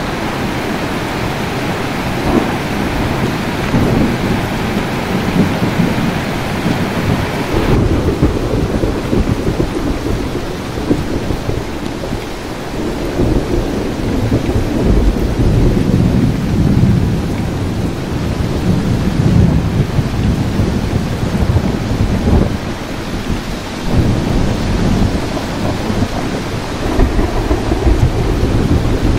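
Steady rain with repeated long rolls of thunder rumbling, swelling and fading through the storm. The rain's hiss turns duller about eight seconds in.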